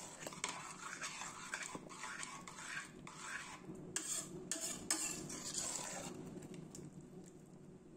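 Metal spoon stirring and scraping thick, wet chickpea curry in a stainless steel pot, with clinks against the pot's sides; the stirring tails off about six seconds in.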